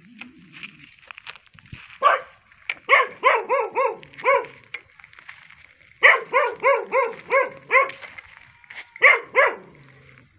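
A dog barking in quick runs of short, high barks, about four a second, with pauses between the runs: a single bark about two seconds in, two runs of about seven barks, and two more barks near the end.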